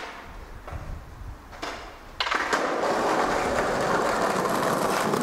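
Skateboard wheels rolling over concrete paving slabs: a sharp clack about two seconds in, then a steady, loud rolling rumble.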